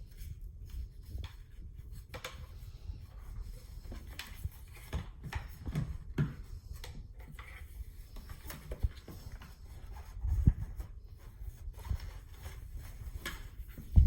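Handling noise from unboxing: scattered knocks, rubs and clicks of packaging and the unboxed item being moved about, with a louder cluster of knocks about ten seconds in.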